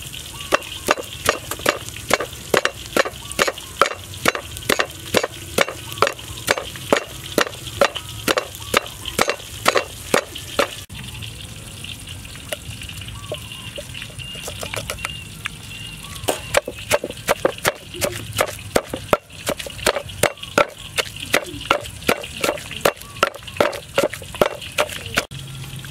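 Wooden pestle pounding garlic and chilli into a paste in a wooden mortar: about three dull knocks a second, thinning out for a few seconds around the middle, then picking up again.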